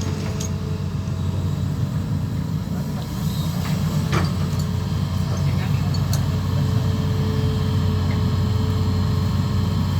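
Diesel engine of an amphibious excavator running steadily with a deep hum, with a few short clicks or knocks about four and six seconds in.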